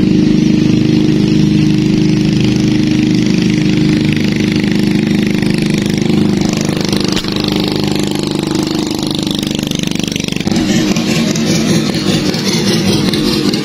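A small engine running steadily, a close, even hum. About ten and a half seconds in it cuts off abruptly and a different, choppier sound takes over.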